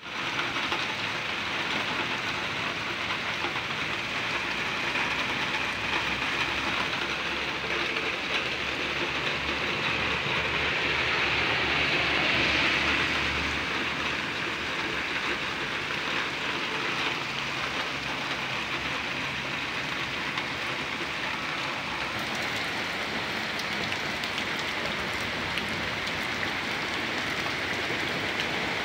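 Heavy rain pouring down on pavement and trees: a steady hiss that swells briefly about halfway through.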